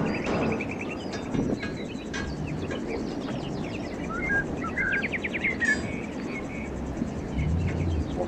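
Small birds chirping and trilling in short calls over a steady low background noise.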